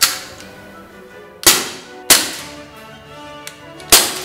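Marushin M712 gas blowback airsoft pistol fired single shots: four sharp cracks at uneven intervals, each with the clack of the blowback bolt cycling and a short echo.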